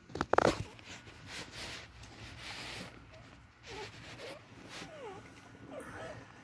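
Newborn beagle puppies squeaking: a handful of short, faint squeaks that rise and fall in pitch fill the second half, after one brief loud sound about a third of a second in and a couple of soft rustling hisses.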